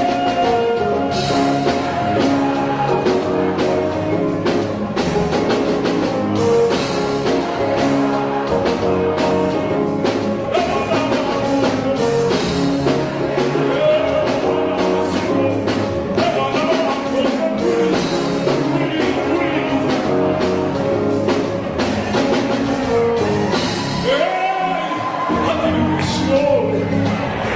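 A man singing live into a microphone, backed by a band on keyboard and electric bass guitar.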